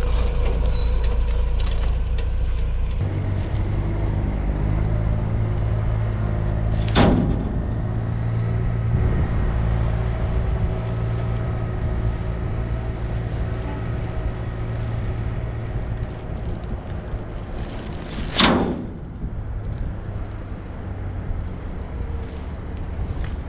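A vehicle engine running steadily, its pitch shifting about three seconds in. Two short, loud noises cut through it, one about seven seconds in and one near the end.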